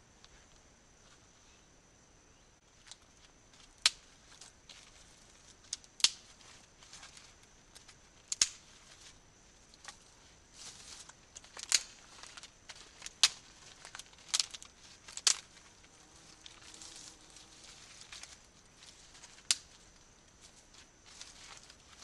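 Dry twigs being snapped by hand for kindling: a string of sharp, irregularly spaced cracks with rustling of the twig pile between them.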